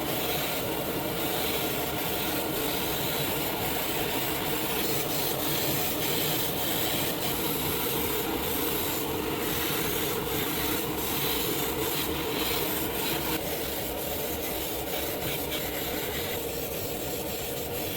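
Continuous, steady abrasive rubbing and scraping.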